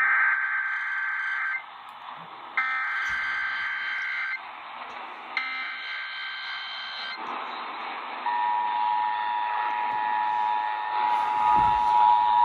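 Emergency Alert System SAME header: three short bursts of screeching digital data tones, each under two seconds, with about a second between them. About eight seconds in, the EAS two-tone attention signal starts and holds steady.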